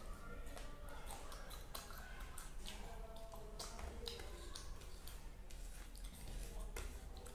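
Close-miked eating: chewing and wet mouth smacks, heard as a scatter of sharp irregular clicks.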